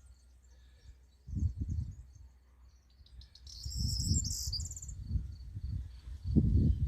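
Insects chirping in a faint, steady, repeating pulse, with a brief high trill about halfway through. Louder low gusty rumbles, like wind buffeting the microphone, come and go over it.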